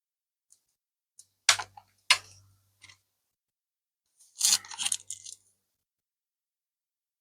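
Black adhesive tape being worked loose from the DC jack cable inside an opened laptop: two sharp clicks about a second and a half and two seconds in, then about a second of crackling as the tape is peeled.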